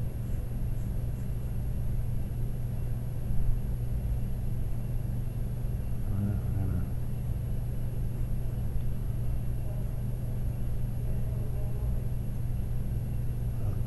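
Steady low background hum.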